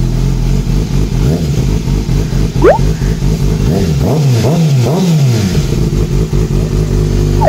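Kawasaki Ninja ZX-6R's inline-four engine, just started, being blipped on the throttle in repeated short revs, several in quick succession between about four and five and a half seconds in, then settling to a steady idle. Twice a short sharp chirp cuts through, once rising and once falling at the end.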